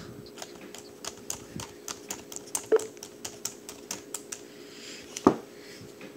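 Lenovo ThinkPad laptop keys clicking in a quick, uneven run as a dog's paw strikes the keyboard, with two louder thumps, one midway and one near the end.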